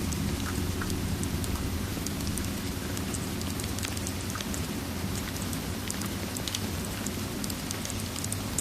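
Steady rain with a low, even rumble underneath and scattered small crackles and ticks.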